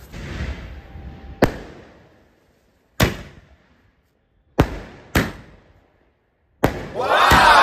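A 60-shot aerial firework cake firing, with a hiss at the start and then a sharp bang every second or so as the shots go off, five in all. A longer, louder rushing sound follows near the end.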